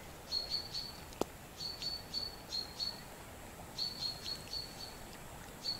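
A small songbird singing: phrases of three to five short, high notes at one even pitch, each phrase followed by a pause of about a second. One faint click about a second in.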